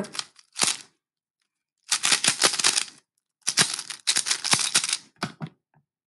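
3x3 Rubik's cube turned fast by hand: its plastic layers clicking and clattering in two quick runs of about a second each, with a few last turns near the end.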